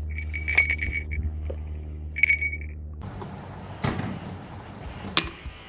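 Small metal objects clinking with a short bright ring, twice, over a steady low engine hum. The hum cuts off abruptly, followed by two sharp knocks, the second the loudest with a brief metallic ring.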